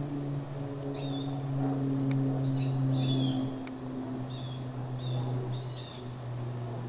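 Small birds chirping in short, repeated high calls, over a steady low hum.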